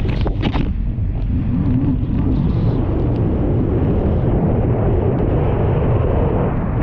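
A personal watercraft running at speed over choppy water, heard as a loud, steady low rush of wind on the microphone, engine and hull slapping the waves, with a brief spatter of spray in the first second.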